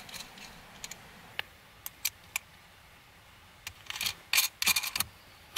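Small metallic clicks and rattles of wire ring terminals and a nut being fitted by hand onto a deep-cycle battery's threaded terminal stud: a few separate clicks, then a busier run of clicking and rustling about four seconds in.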